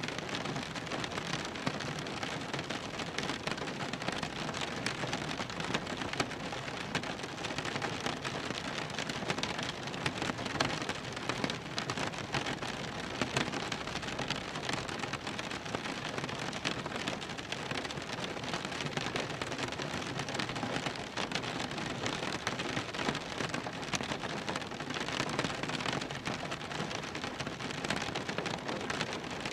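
Rain falling on a car's roof and windows, heard from inside the car: a steady, dense patter of drops.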